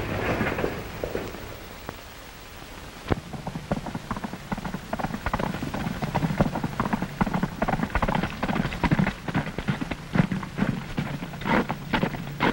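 A horse's hoofbeats on a dirt road: a rapid, irregular clatter of hoof strikes that sets in about three seconds in, after a stretch of rain-like noise.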